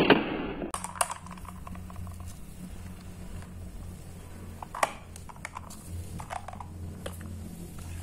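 A few light clicks and taps as the marbles in a plastic toy dump truck's bed shift and knock while a gloved hand handles the truck, over a steady low hum. A brief clatter of marbles comes in the first moment.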